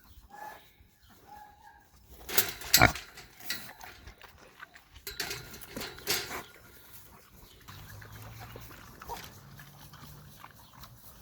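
Pig grunting and snuffling at the fence as it is offered watermelon, with a few sharp knocks about two and a half seconds in and a low steady grunting near the end.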